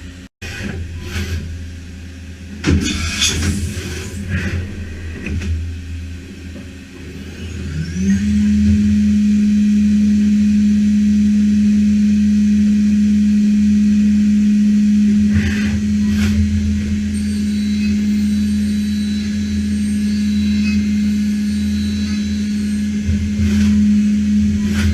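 Matsuura MAM72-35V 5-axis CNC machining center running under a steady low hum. There are clanks and clatter in the first few seconds. About eight seconds in, a tone rises quickly and then holds steady: the spindle spinning up to speed.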